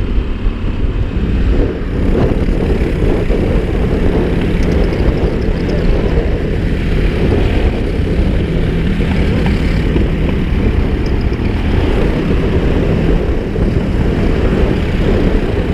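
Motorcycle engine running at highway speed under heavy wind buffeting on the helmet-mounted microphone, the engine note holding fairly steady with small shifts in pitch.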